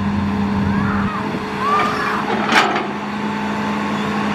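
Hitachi ZX210 hydraulic excavator working: its diesel engine runs steadily, the low hum dropping about a second in, with short squeals and one sharp knock a little past the middle.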